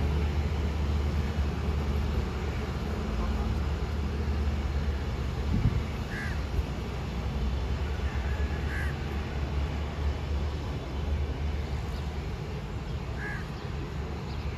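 A crow cawing three times, a few seconds apart, over a steady low rumble that eases off after the first few seconds.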